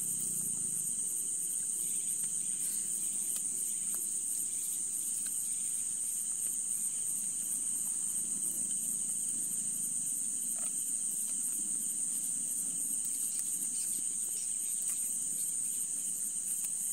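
Crickets chirping in a steady, high-pitched chorus with a fast pulsing trill.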